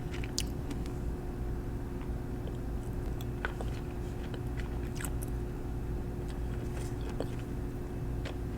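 Close-miked nail-painting handling sounds: scattered small clicks and ticks, a few a second at most, over a steady low hum.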